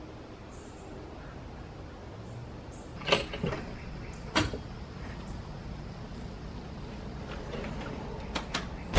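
Sharp metal clacks from the rear ramp door of a Fleetwood Mallard toy hauler camper being unlatched and lowered: three loud ones about three to four and a half seconds in, then a few lighter clicks near the end, over a steady low hum.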